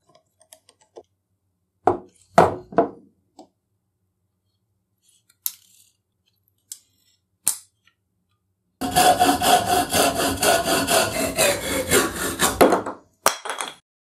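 A few sharp taps on a punch, peening the rivet pin that holds the saw blade, about two seconds in. Then the restored antique hacksaw cuts with rapid back-and-forth strokes for about four seconds, with a ringing tone running through the strokes.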